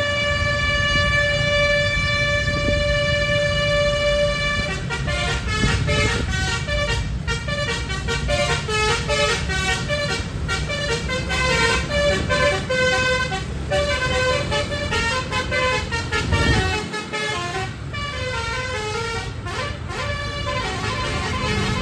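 Indonesian bus 'telolet' multi-tone musical horn: one long held note for about four and a half seconds, then a quick melody of horn notes changing pitch every fraction of a second, over a steady low rumble.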